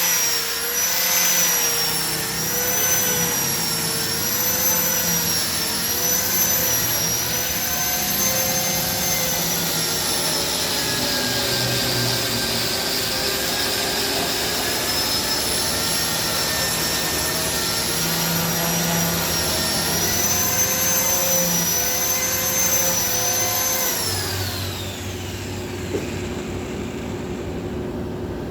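Hand angle grinder with a sanding disc running against a solid wood seat, its high whine wavering up and down in pitch as it works. Near the end it is switched off and its whine falls away as it spins down, leaving a lower hum.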